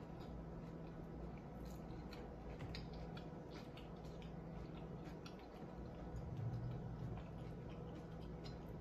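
A person chewing a mouthful of carrot hot dog in a bun with coleslaw, faint wet mouth clicks over a steady low room hum.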